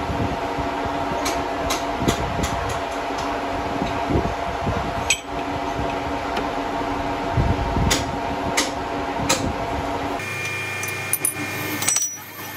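Engine lathe running, a steady hum of several tones over a low rumble with scattered clicks and knocks. About ten seconds in the sound changes abruptly to a different, slightly quieter machine hum with a few clicks.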